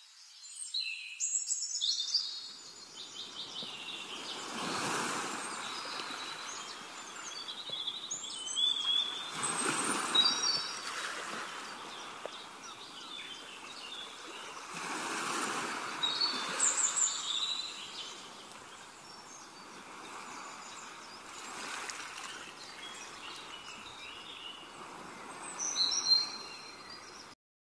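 Birds chirping and singing over a soft rushing background that swells and fades every five seconds or so, like a nature-ambience track. It cuts off suddenly near the end.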